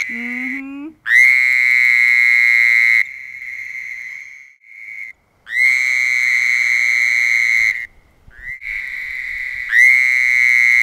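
Toad trilling with its throat sac inflated: three long, steady, high buzzing trills of about two seconds each, with fainter, shorter trills between them.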